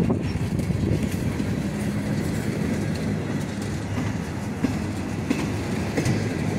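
Freight cars of a CSX manifest train rolling past close by: a steady low rumble of steel wheels on rail, with occasional clicks as wheels pass over rail joints.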